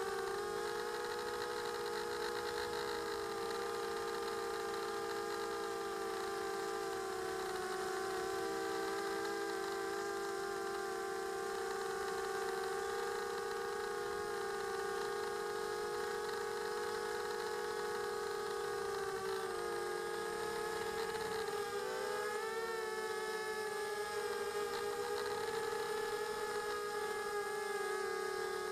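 Quadcopter's electric motors and propellers whining steadily, heard from the camera on the quad itself, several pitches at once. The pitch dips and wobbles about two-thirds of the way through as the motors change speed.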